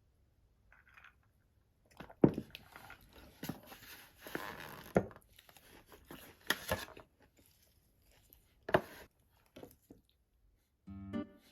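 Crunchy food being bitten and chewed close to the microphone: irregular crunches and crackles with a few sharp bites. Plucked-string background music comes in near the end.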